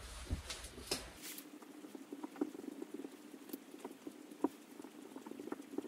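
Whiteboard marker writing on a whiteboard: a quick, uneven run of small squeaks and taps from the felt tip, starting about a second in.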